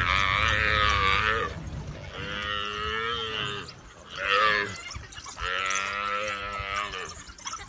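African buffalo calf bawling in distress while wild dogs attack it: four drawn-out, wavering calls with short gaps between them.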